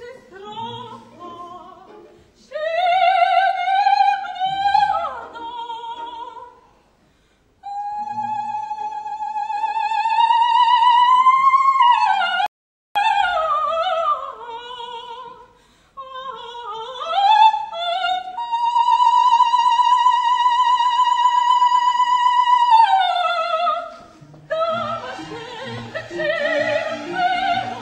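Operatic soprano singing an aria with wide vibrato, in rising phrases that end on a long high note held for about four seconds. The sound cuts out for an instant about halfway through, and the instrumental accompaniment comes up near the end as the voice stops.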